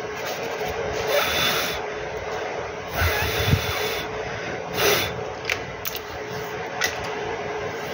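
A brush scrubbing a phone circuit board during post-soldering cleanup, in a few short rubbing passes, with light clicks later on.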